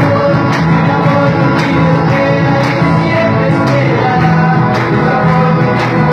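Band music with a steady drum beat and sustained instruments, with a singing voice.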